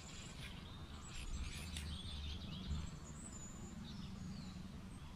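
Quiet outdoor ambience: faint high bird chirps now and then over a low, steady rumble.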